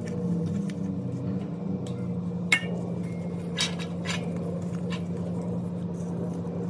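A few sharp metal clinks, such as tools or parts knocking together during wheel bearing work, over a steady low hum.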